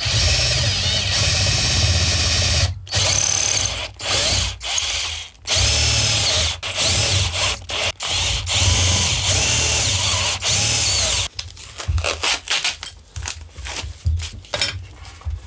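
Cordless drill boring holes into a solid wood guitar body through a metal drilling template, run in repeated short bursts of a second or two with brief stops between them. In the last few seconds the drilling gives way to a patter of light clicks and knocks.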